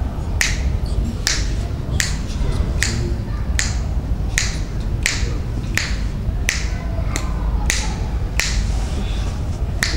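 Rhythmic finger snapping, one sharp snap about every three-quarters of a second with a longer gap near the end, over a steady low rumble.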